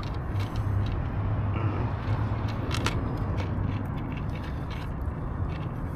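A cat crunching dry food from a plastic bowl: scattered short clicks and crunches. They sit over a steady low, engine-like rumble.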